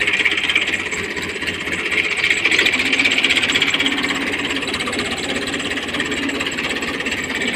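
New Holland Dabang 85 tractor's diesel engine running steadily close by, with a clattering knock.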